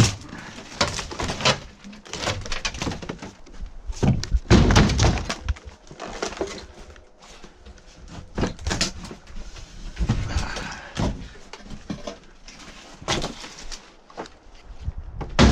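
Irregular clunks, thuds and scrapes of debris being shoveled and dragged about inside a gutted RV, loudest about four to five seconds in.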